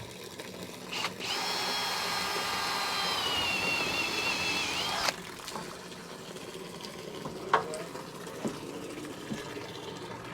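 Power drill running for about four seconds, a steady whine that sags slightly in pitch near the end and then cuts off: drilling a drain hole in the bottom of a 2-inch water main. A few faint clicks and knocks follow.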